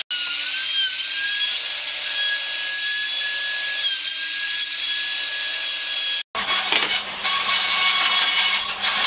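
Electric trim router spinning a dovetail bit and cutting into wood, a loud steady high-pitched whine that dips slightly in pitch about a second in. It cuts off sharply about six seconds in, and a rougher steady noise with a low hum and irregular scraping follows.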